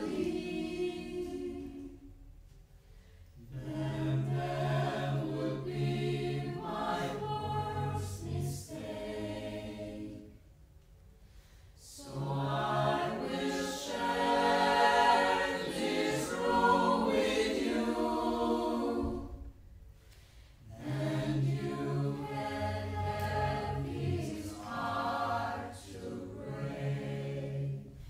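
Small mixed vocal jazz ensemble, from sopranos down to basses, singing unaccompanied in close harmony. Long slow phrases are divided by brief pauses, and the fullest, loudest passage falls in the middle.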